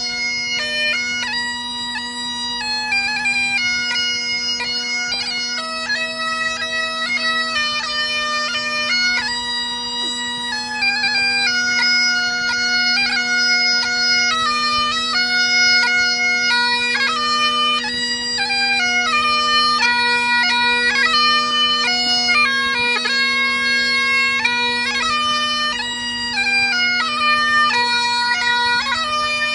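Great Highland bagpipes played solo: a steady drone sounding under a chanter melody of quickly changing notes.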